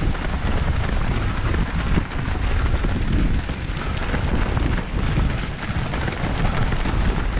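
Wind buffeting the microphone of a camera carried by a running runner: a steady, uneven low rumble.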